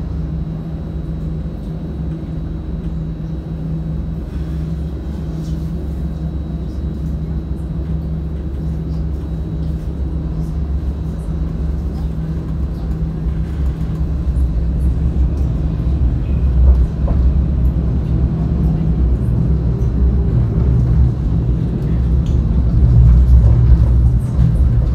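Alstom Citadis 402 tram running along its track, heard from inside the car: a steady low rumble with a steady low hum, growing louder over the second half.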